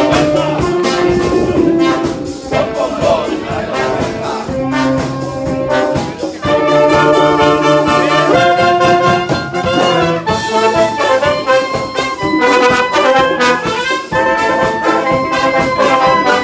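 Street band playing loud, rhythmic music: trombones and other brass over a clarinet and a drum kit.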